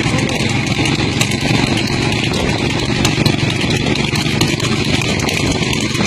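Motor vehicle engine running steadily at speed, with road and wind noise, loud and unbroken.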